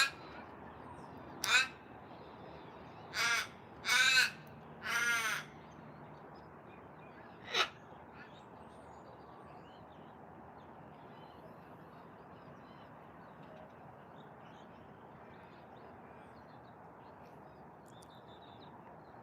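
Raven cawing: two short caws, then three longer drawn-out caws in quick succession about three to five seconds in, and one last short caw near eight seconds. After that only a steady background hiss remains.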